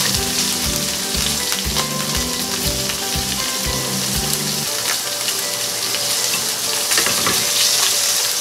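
Chicken breast searing fat side down in hot oil in a steel skillet: a steady sizzle.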